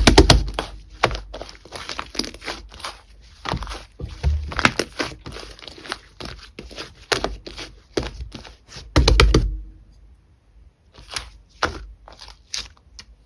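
Slime mixed with shaving foam being squeezed and stretched by hand: rapid clicking and popping with wet squelches, in bursts, pausing briefly about ten seconds in before a few more pops.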